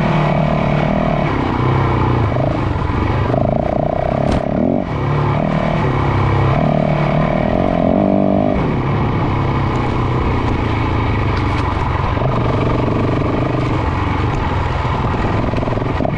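Yamaha dirt bike engine running while riding a rough dirt trail, throttle opening and easing so the pitch shifts up and down. The engine briefly drops off with a short click about four seconds in.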